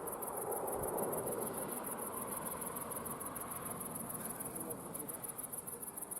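Crickets chirping steadily in a high, rapid, even pulse. Under them, a low rolling rumble swells and dies away over the first few seconds: the echo of a single gunshot from a firing range rolling around the valley.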